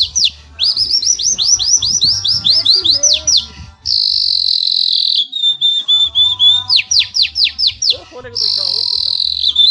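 Imitation of a Belgian canary's song: fast runs of short, high, descending whistled notes, about eight a second, broken by a long held trill about four seconds in and again near the end.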